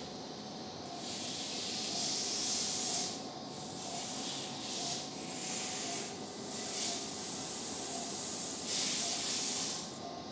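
Electrosurgical pencil with built-in smoke evacuation in use on tissue: a series of hissing bursts, each one to two and a half seconds long, with short breaks between.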